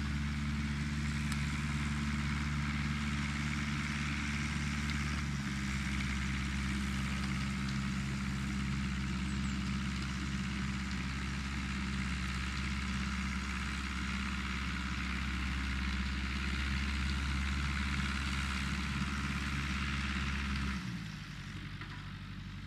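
John Deere tractor's diesel engine running steadily as it drives a rotor muck spreader, with a steady hiss over the engine note. Near the end the engine note falls, the hiss stops and the sound drops off abruptly as the revs come down.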